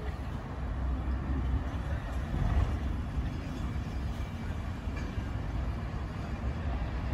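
Low, steady rumble of a rake of Sorefame passenger coaches rolling slowly along yard tracks.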